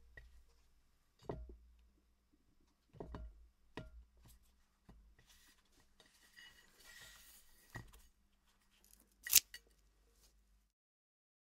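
A few soft taps and clicks as food and a knife are handled on a ceramic plate, then one sharp snip of kitchen scissors cutting rosemary near the end, the loudest sound.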